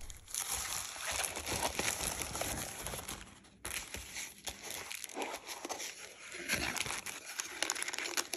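Packaging crinkling and rustling as a plastic bubble mailer and a small cardboard box are handled and opened, with a plastic bag inside rustled. The sound breaks off briefly about three and a half seconds in, then resumes.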